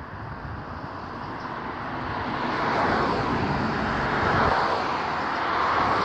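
Road traffic passing: tyre and engine noise of a vehicle swelling up from about two seconds in and staying loud.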